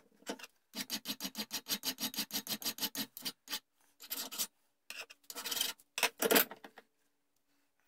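Hand file rasping over a small brass part clamped in a bench vise: a quick run of short strokes, about six a second, then three shorter groups of strokes with pauses between. There is a brief clink right at the start.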